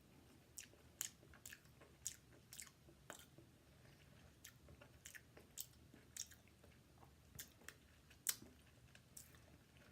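A person chewing canned mussels in marinade sauce with the mouth close to the microphone: faint, wet mouth clicks and smacks, roughly two a second.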